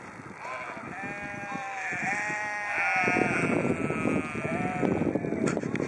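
Sheep bleating: several high, wavering bleats overlapping one after another for about five seconds.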